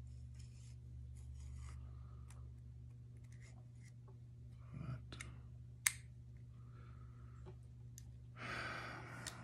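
Small steel parts of a Colt Pre-Woodsman pistol clicking and tapping as they are handled and fitted during reassembly, with one sharper click about six seconds in. A short hiss near the end.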